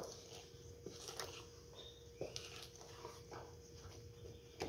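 Spoon stirring thick chocolate cake batter in a stainless steel bowl: faint scraping and soft irregular taps against the bowl, with a sharper knock at the very start.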